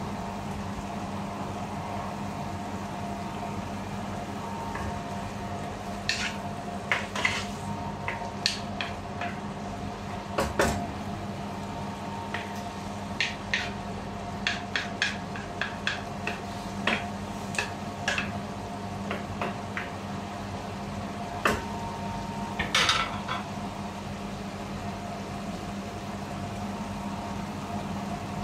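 A spatula stirring sliced sponge gourd and mushrooms in a sauce in a nonstick wok, making a scattered run of short scrapes and taps against the pan from about six seconds in until a few seconds past the middle. A steady hum runs underneath.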